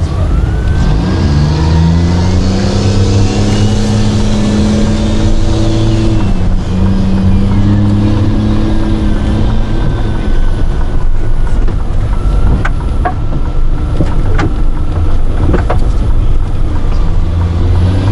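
Car engine and road noise heard from inside a moving car: the engine pulls away and rises in pitch about a second in, drops around six seconds in as it shifts gear, then holds steady while cruising. A few sharp ticks come in the later part.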